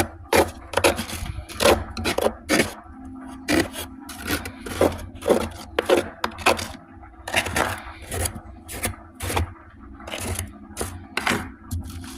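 Soft ice being crunched and chewed close to the microphone: a run of irregular crisp crunches, about two a second.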